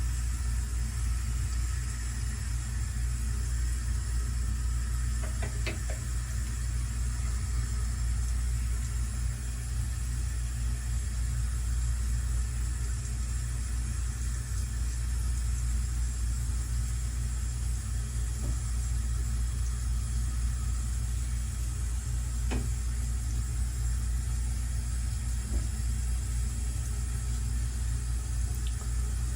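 A steady low hum, with a few faint short clicks.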